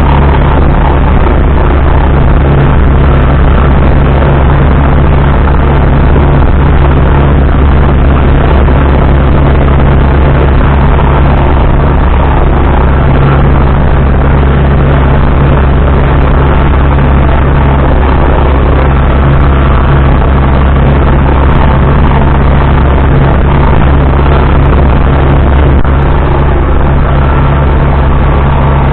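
Ursus C-362 tractor's diesel engine running steadily under load inside the cab while pulling a rotary mower through meadow grass. It is a constant low drone that holds its pace throughout.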